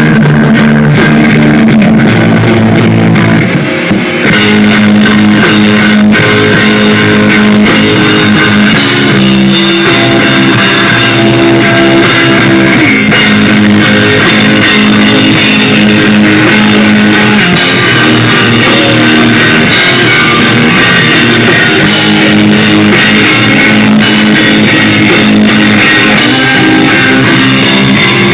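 A rock band playing loud on electric guitar and drum kit; the full band with cymbals comes in about four seconds in.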